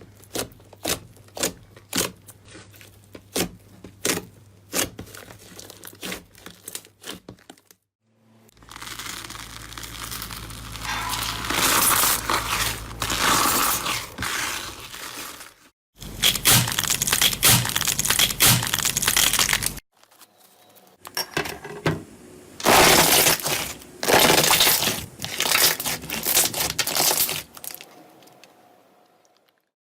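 Slime being poked and squeezed by hand: first a steady run of sharp pops, about two a second, then, over several cuts, dense crackling and crunching squishes.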